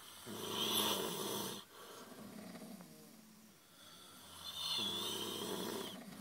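A man snoring loudly in his sleep: two long snores about four seconds apart, with a quieter breath in between.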